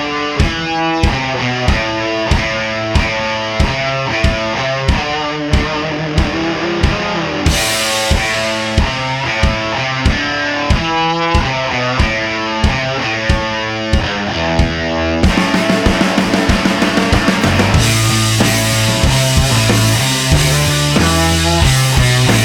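Rock music with guitar and drums and a steady beat. About two-thirds of the way through, the drum hits come quicker and a heavier low part comes in.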